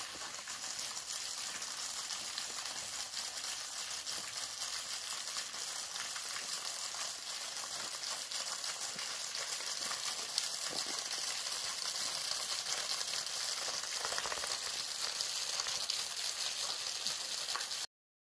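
Thin waterfall splashing onto rocks: a steady hiss of falling water.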